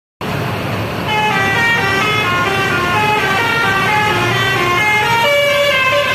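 Indonesian telolet multi-tone bus horn playing a quick tune of short stepped notes, then holding one note from about five seconds in, over a low rumble.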